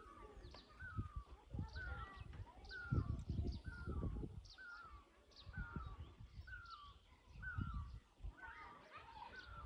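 A bird calling over and over outdoors, one short call repeated just under a second apart, with irregular low rumbles underneath.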